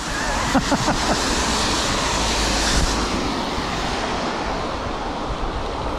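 Steady wind noise rushing over a GoPro action camera's soaked wind muff while cycling, mixed with the hiss of bicycle tyres on a wet road, with a few faint knocks in the first second.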